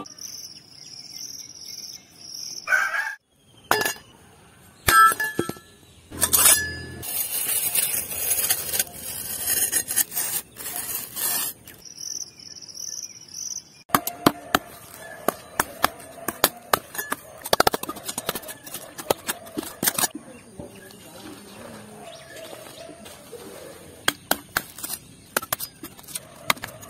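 A metal digging blade chopping and scraping into dry, stony soil, making a dense run of sharp clicks and scrapes from about halfway through. Before that, high chirping bird calls.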